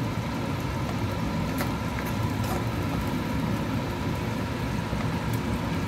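Onions frying in a kadai over a steady low drone, with a few light clicks of a steel ladle against the pan.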